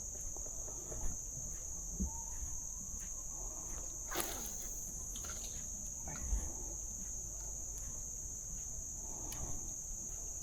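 Insects chirring in a steady, unbroken high-pitched drone, with a few faint knocks scattered through it.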